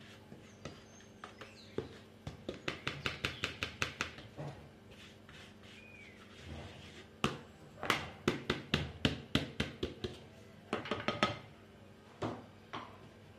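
A blue plastic sieve knocked and tapped repeatedly as cocoa powder is sifted through it into a glass bowl. The sharp taps come in quick runs of several a second, with a pause in the middle and two single taps near the end.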